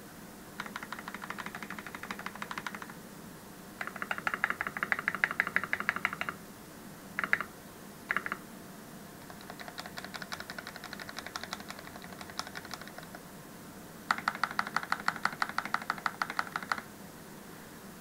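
Keycool KC84 mechanical keyboard, fully tuned, with Akko CS Matcha Green switches and Akko neon PBT doubleshot keycaps, being typed on fast in runs of a few seconds with short pauses between; the sound is thocky. Two single short presses come around seven and eight seconds in, and one run in the middle is softer than the rest.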